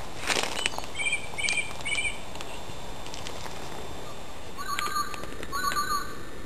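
Bird calls outdoors: three short chirps about a second in, evenly spaced, then two longer, lower calls near the end. A few light rustling clicks come at the start.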